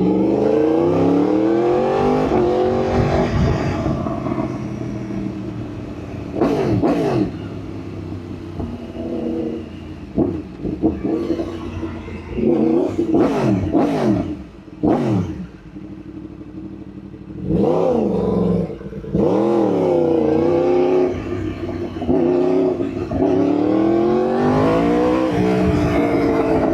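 Yamaha R1 sport bike's inline-four engine being ridden hard, its pitch climbing as it accelerates through the gears and dropping at each shift. There are several short, sharp high revs near the middle.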